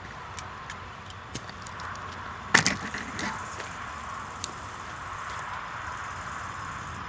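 Outdoor ambience beside a railway line: a steady hiss with scattered small clicks and one loud knock about two and a half seconds in.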